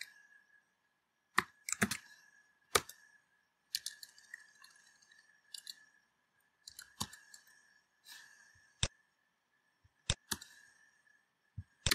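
Computer keyboard keys clicking as code is typed: sharp, irregular keystrokes, some in quick pairs, over a faint steady high-pitched whine.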